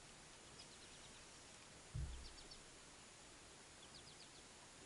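Quiet open-air background with faint bird chirps in short groups of three or four notes, repeating every second or two. A single low thump about two seconds in.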